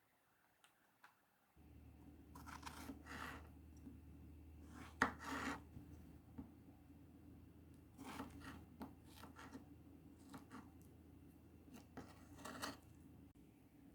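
Quiet scraping and rubbing strokes of kitchen utensils, in short irregular spells a few seconds apart over a low steady hum, with a single sharp click about five seconds in.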